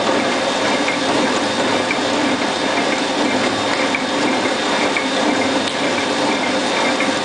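Horizontal flow wrapping machine running steadily, wrapping and sealing sachets in film: a continuous, even mechanical running noise.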